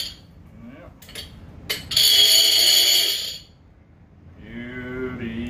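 Avet conventional fishing reel with its clicker engaged, spool spun by hand: a high, even ratchet buzz lasting just over a second, about two seconds in, with the tail of an earlier buzz at the very start and a couple of sharp clicks between. Near the end a man makes a short humming sound.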